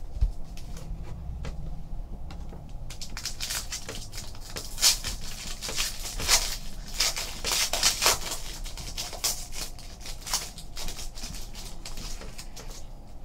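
Trading card pack wrapper crinkling and tearing as it is pulled open by hand, a run of crackling rustles starting about three seconds in.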